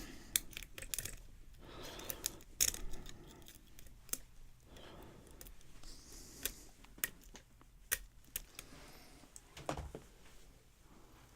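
Lock pick and tension wrench working the pins of a Cisa five-pin padlock: irregular small metallic clicks and light scraping.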